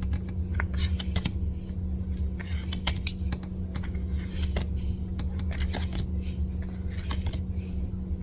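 Pokémon trading cards being handled, giving a run of small irregular clicks, snaps and rustles over a steady low hum.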